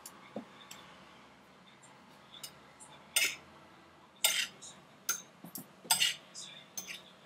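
Cutlery scraping and clinking against a ceramic plate as a salad is mixed and portioned, in short separate strokes that come thicker in the second half.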